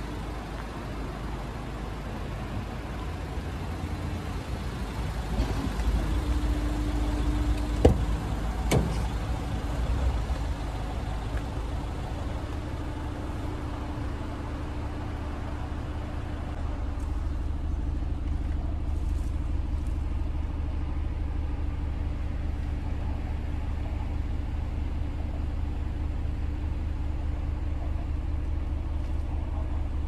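Renault Master van's 2.3-litre diesel engine idling steadily. There are two sharp knocks about eight seconds in, and the low rumble grows heavier partway through.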